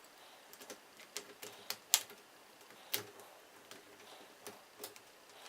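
Irregular sharp clicks and light knocks of a lock-on rubber handlebar grip and its metal clamps being handled and fitted onto a scooter handlebar, the loudest about two and three seconds in.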